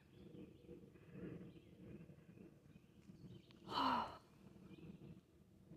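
A person's short, breathy sigh about four seconds in, over faint outdoor background noise.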